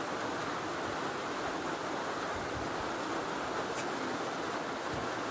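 Steady, even background hiss with a few faint clicks.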